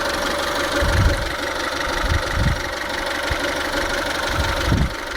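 Kia Pride's B3 four-cylinder engine idling hot, heard close up in the engine bay, with a few low thumps. The owner is listening for a vacuum leak near a vacuum line.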